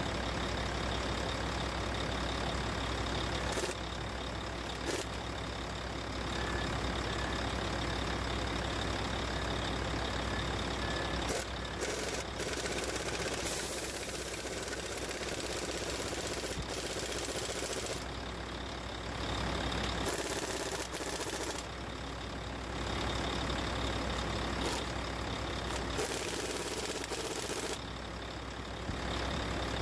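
Heavy truck's diesel engine running with a steady low drone and road or engine noise above it, shifting in level every few seconds.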